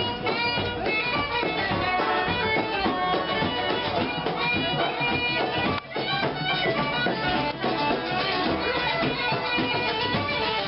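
Traditional folk music, an instrumental break between the sung verses of a sea song: a lead melody over strings and accompaniment. The music drops out for a moment about six seconds in.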